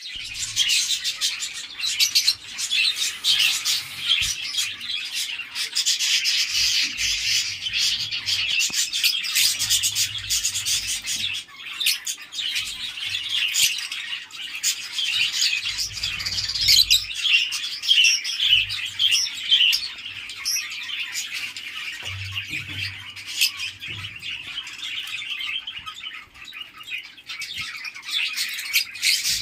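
A group of cockatiels chirping and calling continuously, many rapid overlapping chirps. Now and then there are soft low thuds.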